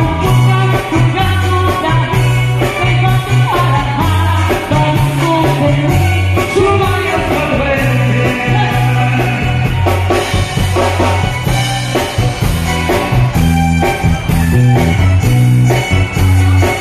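Live band playing an upbeat dance number through a PA system: electric bass, electric guitar, keyboard and drums, with a vocalist singing over a prominent bass line.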